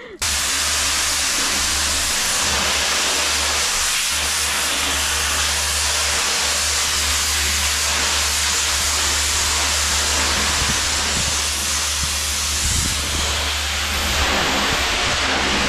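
Pressure washer spraying a steady, loud jet of water, with the low hum of its pump underneath; it starts suddenly at the beginning.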